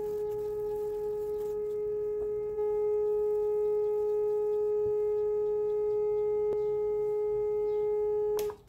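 Loudspeaker under a salt-covered Chladni plate, fed a steady single-frequency tone from a signal generator. The tone gets slightly louder about two and a half seconds in and cuts off abruptly near the end as the generator is switched off.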